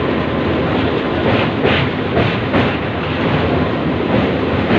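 Indian Railways suburban local train running at speed, heard from inside the coach: a steady rumble with the wheels clicking over rail joints.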